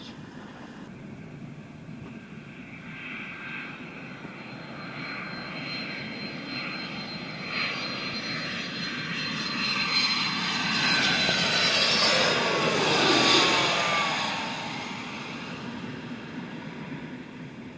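Twin-engine jet airliner on final approach to land, passing low overhead: its engine noise builds, is loudest about two-thirds of the way through with a whine that slides down in pitch as it passes, then fades away.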